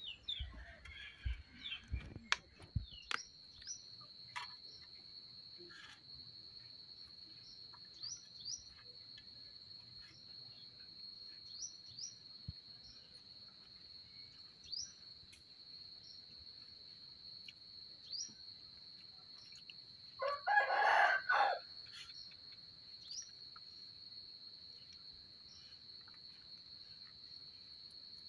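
A rooster crows once, loudly, about two-thirds of the way through, over a steady high-pitched insect drone and short bird chirps every second or two. A few sharp knocks sound in the first three seconds.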